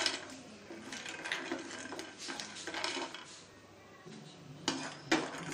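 Spatula stirring almonds and cashews as they dry-roast in a non-stick frying pan, the nuts scraping and rattling across the pan in irregular strokes, with two sharper knocks against the pan a little before the end.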